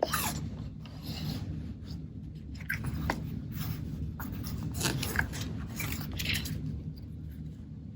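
A low steady hum with a few faint, scattered handling clicks and rustles.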